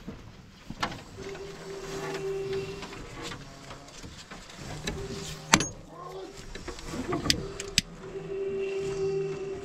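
A small electric motor whirs steadily in three short spells, with sharp knocks and clicks of metal tools in between, the loudest about halfway through.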